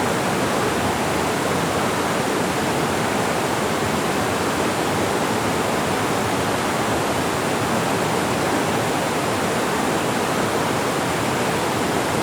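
Mountain-valley stream water rushing over rocks in a steady, unbroken flow.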